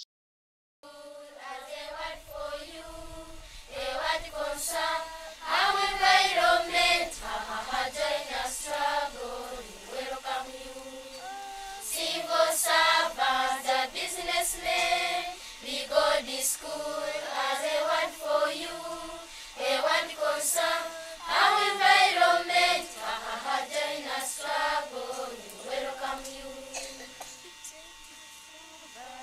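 A group of primary-school children singing a song together, starting about a second in after a moment of silence.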